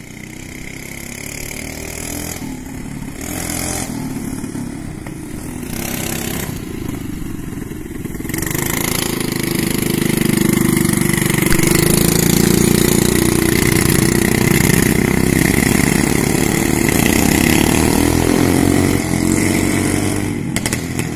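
Quad-bike (ATV) engine running, growing louder as it approaches and passes close at its loudest around the middle, its pitch rising and falling with the throttle, then dropping away near the end.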